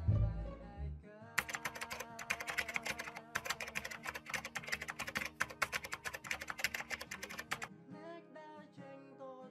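Rapid keyboard-typing clicks over soft background music. The typing starts about a second and a half in and stops near the end, leaving gentle plucked-guitar music.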